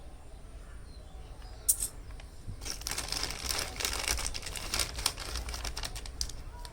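Plastic packaging crinkling and rustling as it is unwrapped, with many small crackles, after a single sharp click just under two seconds in.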